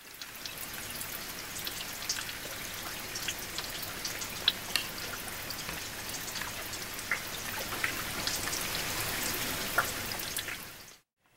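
Steady rain with scattered drops ticking sharply, dying away quickly near the end.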